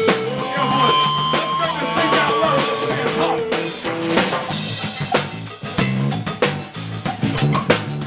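Live band music: an electric bass guitar line over drum kit, with held notes from another instrument in the first half that stop about halfway through, leaving bass and drums.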